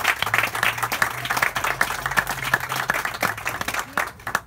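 Audience applauding as a speaker is welcomed; the clapping thins out and stops near the end.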